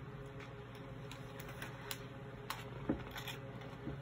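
Quiet room tone with a steady low hum, broken by a few faint, light clicks.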